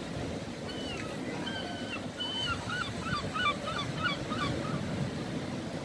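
Sea waves breaking and washing against a stone seawall. Over them a gull calls: a few drawn-out cries, then a quick run of short yelping notes around the middle.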